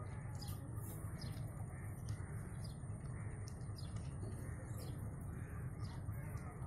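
Birds chirping in short calls that repeat about every half second to a second, faintly, over a low steady rumble.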